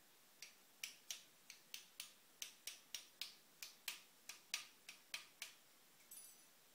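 Faint, sharp metallic clicks, about seventeen at an uneven pace of roughly three a second, as the top end of a CNC router spindle is worked by hand, then a brief small metallic ring near the end.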